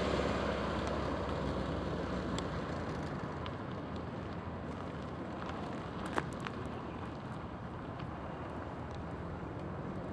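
Steady road and engine noise of a car being driven, with a few faint clicks and one sharper click about six seconds in.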